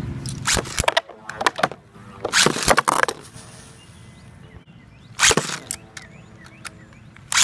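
Metal Fight Beyblade spinning tops (Galaxy Pegasus W105R2F and Sol Blaze V145AS) clacking against each other and the hard plastic BB-10 stadium: a quick run of sharp hits in the first three seconds, then a quieter stretch with one top spinning, broken by another sharp hit a little after five seconds.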